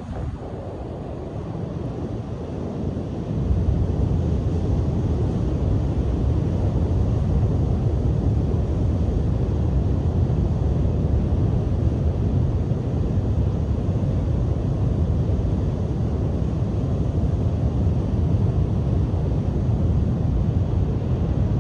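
Strong coastal wind buffeting the microphone as a steady low rumble over breaking surf, growing louder about three and a half seconds in.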